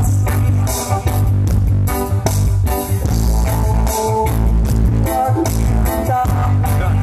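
Music with guitar, heavy bass and a steady beat played loudly through a large sound system.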